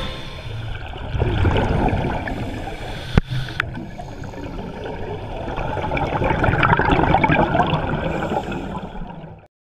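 Scuba diver's breathing heard underwater: exhaled bubbles from the regulator gurgling and rushing, swelling twice, with one sharp knock a little over three seconds in. The sound cuts off just before the end.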